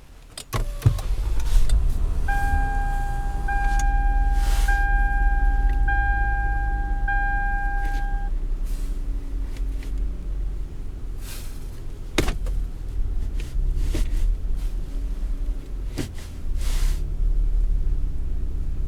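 A 2007 Lexus ES350's 3.5-litre V6 starts about half a second in and runs at a steady idle. A dashboard warning chime sounds five times, about once every 1.2 seconds, and two sharp knocks come later, about four seconds apart.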